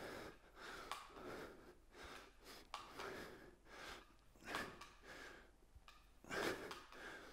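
A man breathing hard and faintly through a set of dumbbell push presses, with a sharp breath roughly every second.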